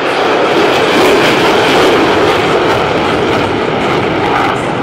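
Jet engines of four fighter jets passing low in formation: a loud, steady roar of engine noise.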